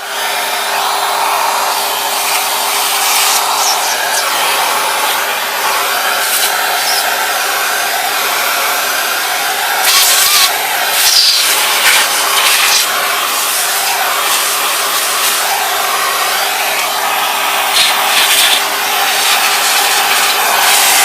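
Vacuum cleaner motor running steadily with a constant whine and rushing airflow, with a few brief louder rushing and rubbing noises about halfway through and again near the end.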